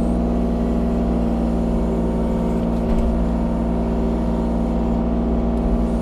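Kubota U35-4 mini excavator's diesel engine running steadily, with a light knock about halfway through.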